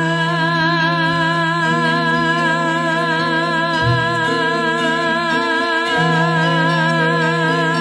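Javanese gamelan music in pelog barang tuning. Metallophone notes step through the melody over a steady low tone, a long wavering melodic line is held above them, and there is one low stroke about four seconds in.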